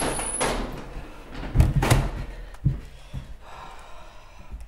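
A wooden door banging as someone bursts indoors, followed by several heavy thumps about a second and a half in.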